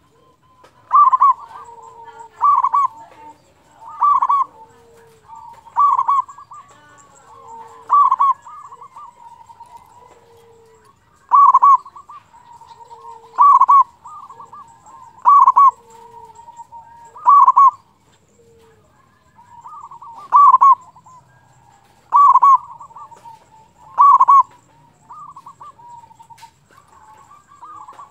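Zebra dove (perkutut) cooing its repeated call: a loud phrase about every two seconds, with softer low notes between phrases.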